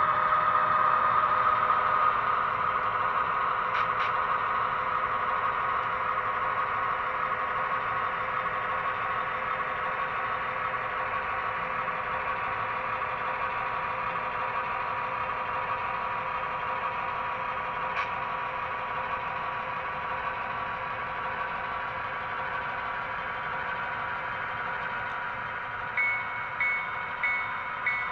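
Model diesel locomotive's sound decoder playing a steady diesel engine drone as the locomotive moves at slow switching speed. About two seconds before the end the locomotive bell starts ringing, roughly one and a half strokes a second.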